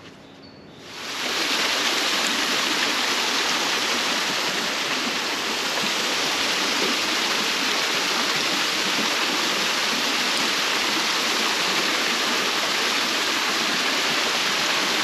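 Steady rush of running water at a canal lock, coming in about a second in and holding evenly throughout.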